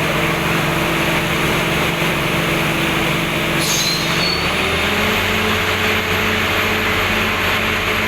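Heavy engine of a borewell drilling rig running steadily under a loud hiss; about halfway through its pitch shifts and settles at a new steady tone.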